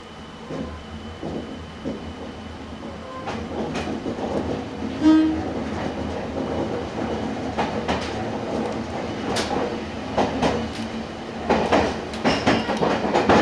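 Train running slowly over the rails, wheels clicking and knocking over joints and points. The noise grows louder toward the end, and there is one short tone about five seconds in.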